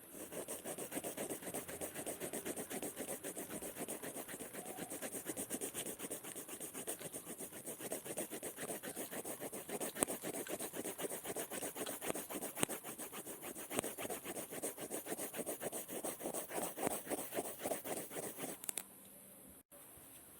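Scribbling on paper with a writing tool: rapid, even back-and-forth scratchy strokes that stop near the end.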